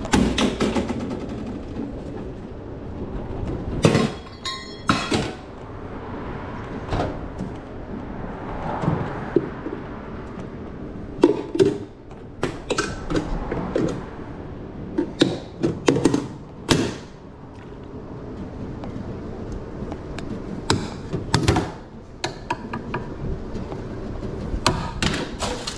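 Irregular knocks, clunks and scraping of food-prep handling: containers, lids and utensils set down and moved about at a counter while an order of hot dogs is made up.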